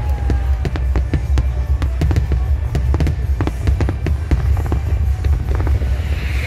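Aerial fireworks bursting and crackling, many sharp cracks a second over a deep rumble, with music playing along. The cracks thin out near the end as the bursts fade.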